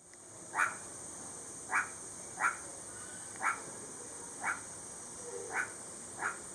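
Meerkat giving short, repeated chirping calls, about one a second, seven in all. A steady high-pitched hum runs underneath.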